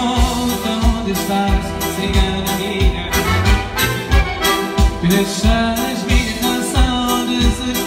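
Live dance music during an instrumental break between vocal lines: an Elkavox electronic button accordion plays the melody over a steady beat of about two thumps a second.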